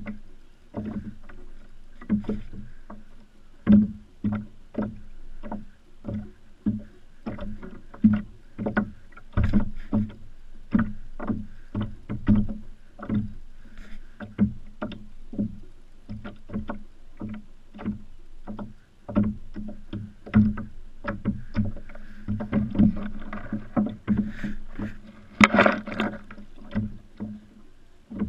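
Hull of a Hobie kayak knocking and slapping in a steady rhythm, about two times a second, with one louder, sharper knock near the end.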